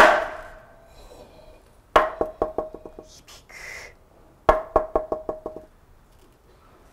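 Wooden han, the Zen temple signal board, struck with a wooden mallet: one sharp knock, then twice a strike followed by a quickening run of knocks that fade away, each knock ringing briefly at one pitch.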